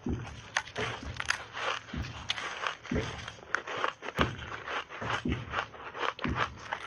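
Close-miked crunching of frozen purple ice chunks coated in milk powder as they are bitten and chewed: a stream of crisp cracks and crackles, with a heavier crunch about once a second.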